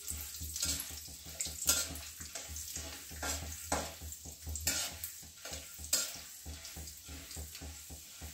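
Chana dal and urad dal frying with cumin seeds in hot ghee in a kadhai, sizzling steadily, while a spatula scrapes across the pan in repeated irregular strokes as the dal is stirred.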